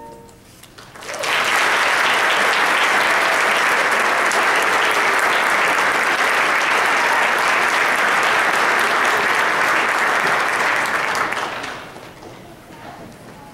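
A held chord of the music dies away at the start, then audience applause starts about a second in, holds steady, and fades out near the end.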